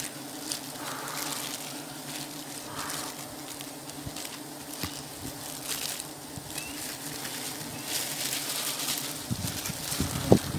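A swarm of honeybees buzzing steadily around the exposed honeycomb, a continuous low hum. Over it come short bouts of plastic-bag crinkling and rustling, and one sharp knock near the end.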